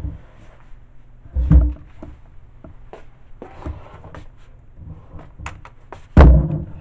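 Handling knocks and light clicks, with two heavier thumps, one about a second and a half in and a louder one near the end.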